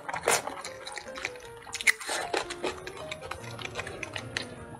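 Close-miked wet chewing and mouth clicks of someone eating braised pork belly with rice, over soft background music.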